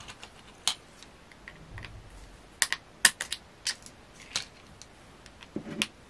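Long thin metal screws clicking against a hard plastic lid and the plastic housing of a small air pump as they are picked up one by one and fitted into its end cap: a string of light, sharp, irregular clicks, bunched together about halfway through and again near the end.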